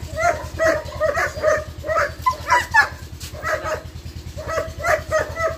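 Long-coated German Shepherd barking in quick runs, about two to three barks a second, with a short pause a little past the middle.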